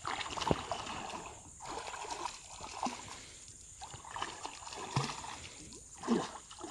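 Creek water sloshing and splashing in irregular surges as people wade and move through it, with a few brief sharper splashes.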